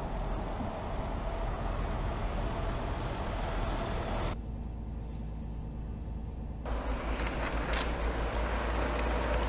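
Mercedes-Benz Actros tractor-trailer driving on a test track: steady engine and tyre noise over a deep rumble. The sound changes abruptly about four and again about seven seconds in.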